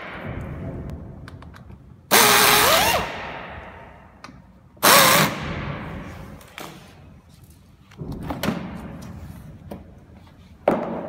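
Cordless drill-driver running in short bursts as it backs the screws out of a massage chair's back cover. The motor whine rises and falls in pitch in a loud burst about two seconds in and another about five seconds in, with softer bursts later.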